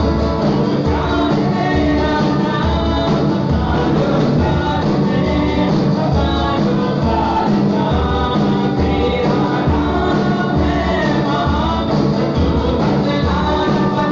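Live church worship band playing a Hindi Christian praise song, with a drum kit keeping a steady beat under acoustic and electric guitars, and singers singing into microphones.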